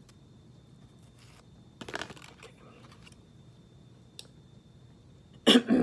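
Faint scattered clicks and a short rustle about two seconds in as a paper towel is picked off a microwaved burrito, then a man's brief loud vocal sound near the end.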